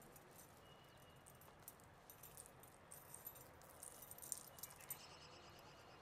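Faint jingling of metal bangles on a wrist: a run of soft, light clinks, loudest about four seconds in, over near-silent room tone.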